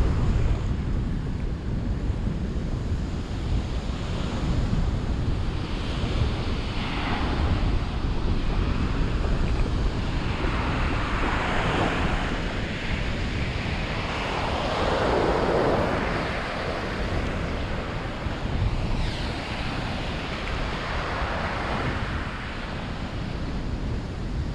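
Sea waves washing onto the shore in several swelling surges, about four of them, over a steady low rumble of wind buffeting the microphone.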